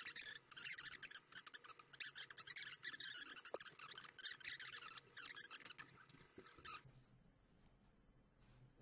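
Dense crackling static with many fine clicks, which cuts off abruptly about seven seconds in, leaving a faint low hum.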